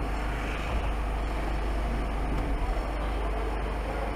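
A London black cab's diesel engine idling with a steady low rumble, heard from inside the stationary cab.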